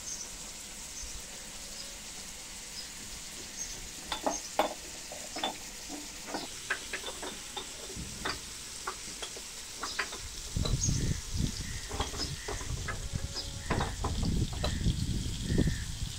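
Small birds chirping in short, scattered calls, a house sparrow among them. From about ten seconds in, wind rumbles on the microphone in gusts under the chirps.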